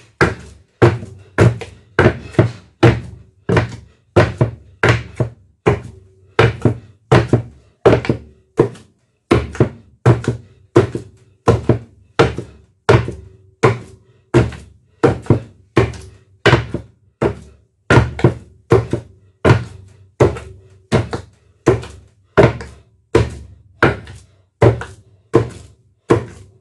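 Wooden pestle pounding boiled yam in a wooden mortar: a steady rhythm of dull thuds, about three every two seconds, as the mash turns into smooth pounded yam.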